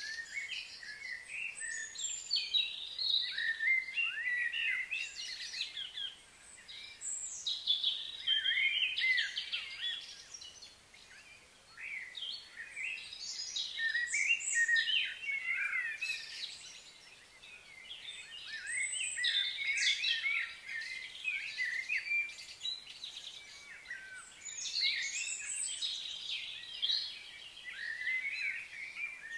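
Several birds chirping and singing together in overlapping bursts of short, quickly rising and falling notes, with brief lulls between bursts.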